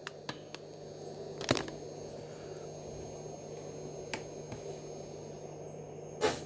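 Hands handling a small plastic action figure on a wooden desk: a few light clicks and taps, with two louder knocks about one and a half seconds in and near the end, over a steady low hum.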